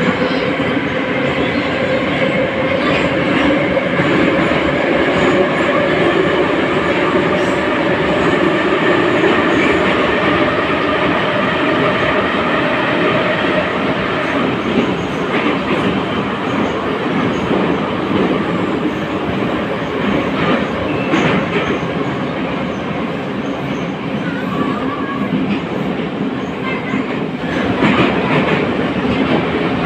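Inside a running 81-541 metro car: a steady rumble of the wheels and running gear with a constant whine over it, and now and then a clack of the wheels over rail joints.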